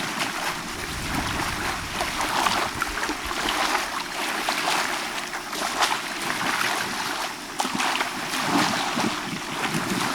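Bay water lapping and splashing in small irregular waves, with wind on the microphone.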